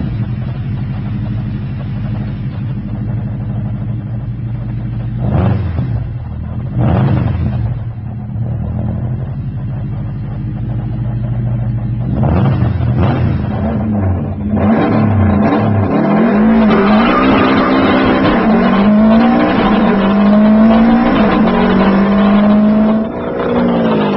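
Subaru flat-four engine started and idling steadily, blipped briefly twice about five and seven seconds in. In the second half it is revved up and down over and over, louder, with the pitch rising and falling.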